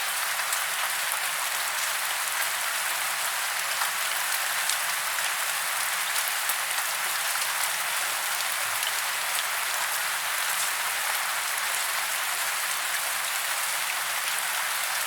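Steady rain falling: a dense, even hiss with many scattered individual drop ticks.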